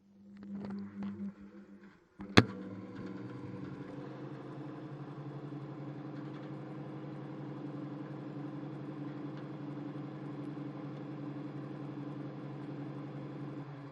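Washing machine starting up: a few soft knocks, then one sharp click, then a steady low motor hum.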